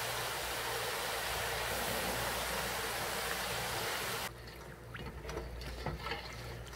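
Tofu snack dough pieces deep-frying in hot oil: a dense, steady sizzle. About four seconds in it drops suddenly to a quieter sizzle with scattered small pops and clicks as a wire strainer lifts the fried pieces.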